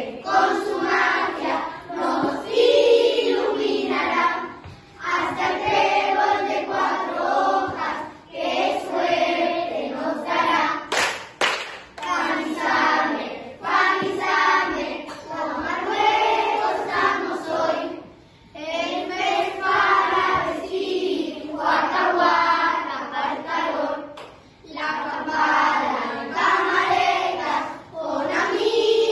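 A group of children singing a camp anthem together, in phrases of a few seconds with short breaks between them. There are a couple of sharp clicks about eleven seconds in.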